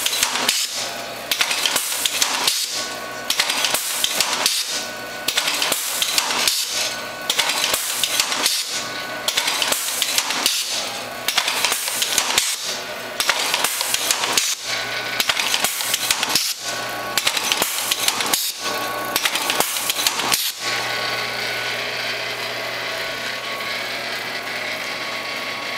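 Automated Packaging H-100 autobagger cycling automatically, about one cycle every two seconds: each cycle is a burst of clattering and clicking, with a short break between cycles. About 20 seconds in the cycling stops, and a steady hum carries on.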